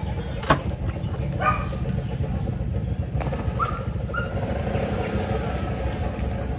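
A vehicle engine idling with a steady low rumble amid street noise, with a sharp click about half a second in and two short chirps about three and a half seconds in.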